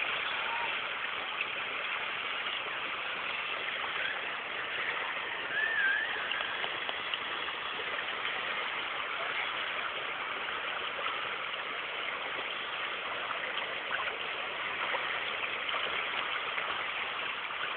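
The River Ganges flowing fast, a steady rush of water. About six seconds in, a brief wavering whistle sounds over it.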